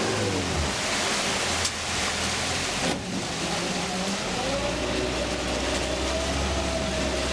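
Tour boat's motor running over a steady rushing hiss. It drops in pitch at the start as the throttle comes off, then picks up again about halfway through and holds a higher steady tone.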